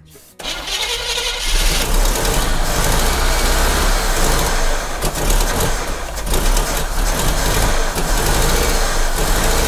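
Chevy 350 small-block V8 being cranked over on the starter with starting spray, a loud uneven rumble that begins about half a second in. It does not take on its own, a fuel-delivery fault the owner puts down to a bad fuel pump.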